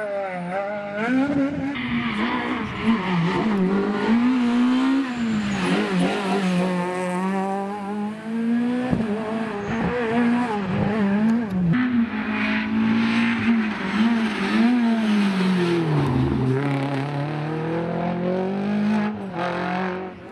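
Rally cars on a tarmac stage, one after the other: a Peugeot 306 and then a Ford Fiesta, their engines revving hard, rising and falling in pitch through gear changes and lifts, with a deep drop and climb back near the end.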